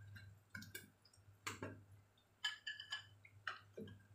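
Wooden chopsticks tapping and scraping against a nonstick wok while fried tempe fritters are turned: a scatter of light, irregular clicks and knocks over a low steady hum.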